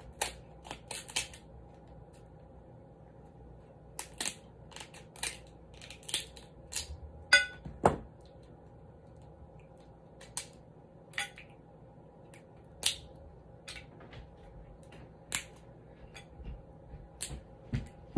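Crab shell cracking and snapping as it is broken open by hand: a run of sharp, crisp cracks, one every half second to second, the loudest a little over seven seconds in.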